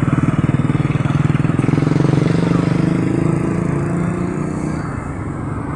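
A small engine running with a steady, fast pulse, slowly growing quieter.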